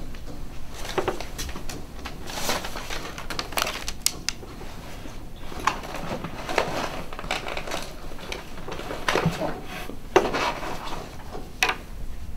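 A sheet of paper rustling as it is handled on a school desk, with irregular light knocks and scuffs.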